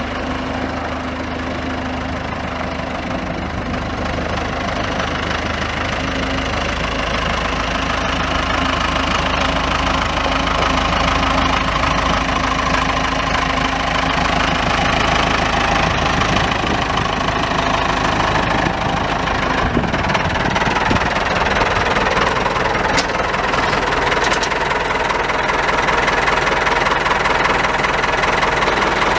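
Four-cylinder diesel engine of a 1985 Ford 6610 tractor running steadily, growing a little louder over the first ten seconds, with a change in its low note about twenty seconds in.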